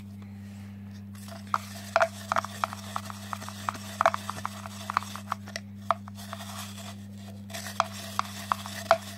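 Homemade slime, stiffened with a lot of salt, being stirred and worked, giving irregular short sticky clicks and pops.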